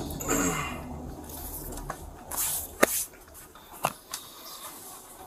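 Rustling of a body-worn camera and gear as an officer moves inside a patrol car cabin, with a few sharp clicks. A low rumble under it fades out about two seconds in.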